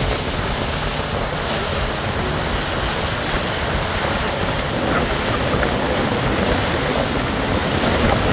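Steady rushing of wind and water, with wind buffeting the microphone in a low, uneven rumble.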